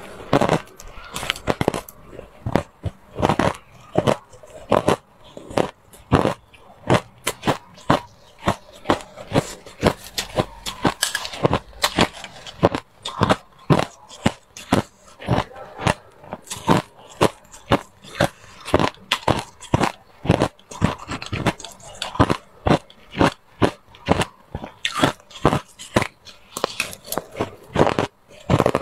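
Hard ice being bitten and chewed, sharp crunches coming about twice a second in an uneven stream.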